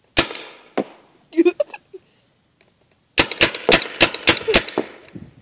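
Paintball gun firing: two single shots near the start, then a rapid burst of about eight shots in a second and a half about three seconds in.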